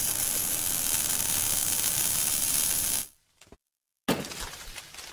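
Logo-animation sound effect: a steady, high hissing noise that cuts off abruptly about three seconds in, then after a brief silence a sudden hit with a crackling tail that fades away.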